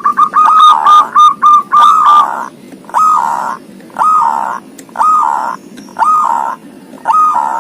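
Zebra dove (perkutut) singing: a quick run of about seven short notes, then five longer coos about a second apart.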